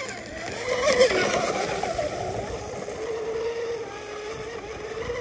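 Proboat UL-19 RC hydroplane running fast across the water: the steady, slightly wavering whine of its Tenshock 3760 2300 kV brushless motor and propeller, with hiss from the spray. The sound swells loudest about a second in.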